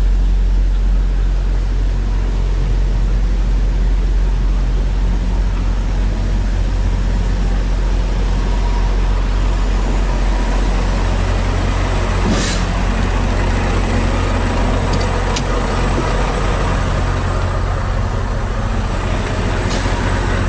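Steady low drone of idling diesel engines from the parked trucks and trailer refrigeration units, with a sharp click about twelve seconds in.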